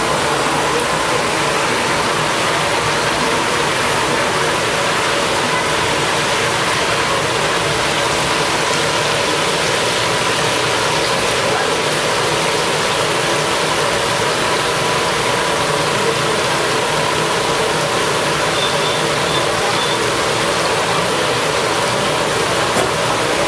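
Chicken legs deep-frying in hot oil in a kadai: a steady, loud sizzle.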